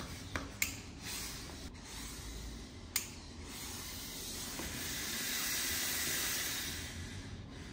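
Hand steam iron pressing a fabric sleeve on a tailor's ham: a steady hiss that swells louder around five to six seconds in, with a few light clicks along the way.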